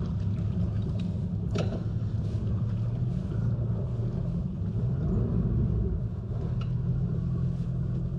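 Yamaha 250 SHO V6 four-stroke outboard on a bass boat running steadily at low speed, a constant low hum, with one sharp click about one and a half seconds in.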